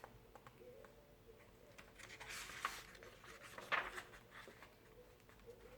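Faint paper rustle of a picture book's page being turned, with a longer rustle about two seconds in and a short sharp one near four seconds.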